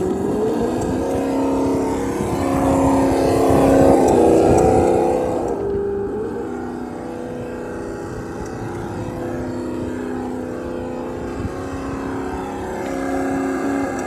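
Electric motor and gear drive of a Traxxas TRX-4 radio-controlled crawler whining as it drives over rocks, the pitch rising and falling with the throttle.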